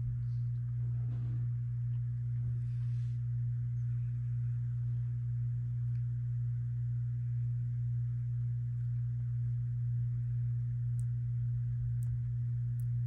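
Steady low hum at one unchanging pitch, with a few faint ticks near the end.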